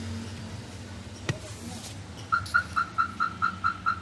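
A steady low hum with a single click just over a second in, then from about halfway a car's warning chime beeping rapidly on one high tone, about six beeps a second.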